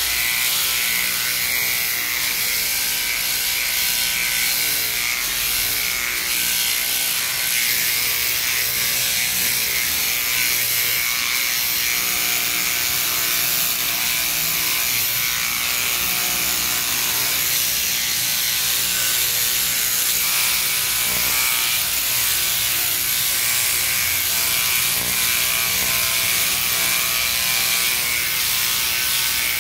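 Sheep-shearing machine handpiece on its jointed drive shaft, running steadily as it clips the fleece off a sheep.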